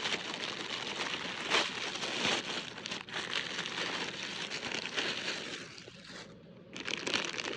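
Packaging being opened and unwrapped: continuous crinkling and rustling with many small crackles, easing off briefly about six seconds in.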